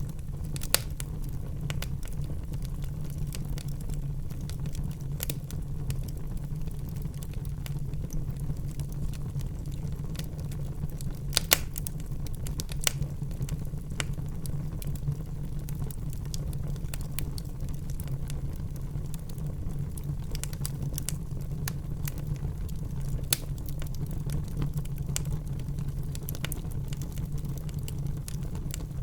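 Wood fire burning in a fireplace: a steady low rumble with scattered sharp crackles and pops. The loudest pops come about a second in and about eleven seconds in.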